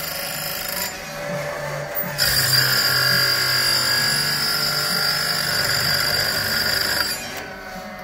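An Oregon automatic saw-chain grinder's abrasive wheel is grinding the chain's cutters with a steady high hiss. The grind breaks off about a second in while the machine indexes to the next cutter. It resumes more loudly about a second later, runs for about five seconds and stops near the end.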